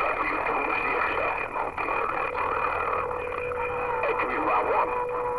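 CB radio speaker on an open skip channel: a garbled din of overlapping distant stations and static, with a steady heterodyne whistle, joined about three seconds in by a second, lower whistle.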